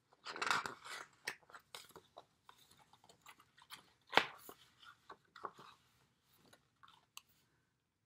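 Pages of a picture book being handled and turned: paper rustling and crinkling with a series of short crisp clicks. The loudest snap comes about four seconds in, as the page flips over.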